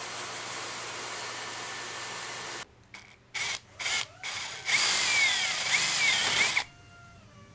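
A steady hiss for the first few seconds. Then a drill boring into a black plastic dust-hose adapter: three short bursts of the drill, then a run of about two seconds with squealing from the bit in the plastic, which stops suddenly.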